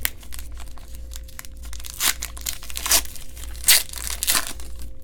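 Trading card pack wrapper being torn open and crinkled by hand, with four louder rips in the second half.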